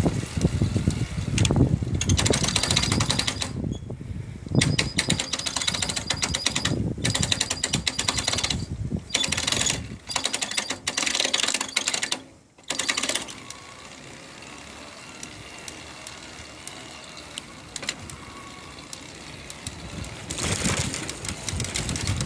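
Yamaha PAS electric-assist bicycle drive unit giving off a fast, harsh rattling clatter, broken by a few short gaps and dying down about halfway before returning near the end. This abnormal noise came from water getting into the unit and rusting its internals.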